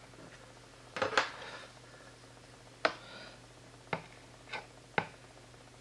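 Handling noise on a workbench: about five sharp clicks and knocks, the loudest a short clatter about a second in, as a plastic welding iron and its cord are moved against a hard plastic headlight mount.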